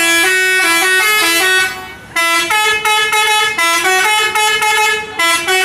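Bus telolet musical air horn playing a tune in two-note chords. Held notes step up and down in pitch, there is a short break just under two seconds in, and then come quicker, separate staccato notes.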